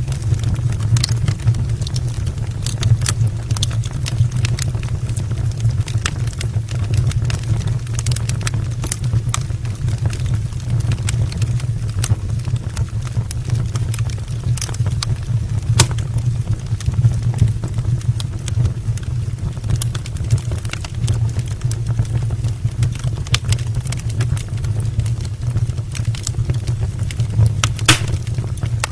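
Firewood burning in an open brick fireplace: scattered sharp crackles and pops over a steady low rumble of the fire.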